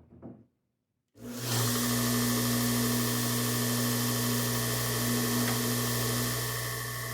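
A brief handling noise, then about a second in a belt grinder is switched on: its electric motor spins up quickly and runs steadily with a hum and a high whine over the belt's hiss.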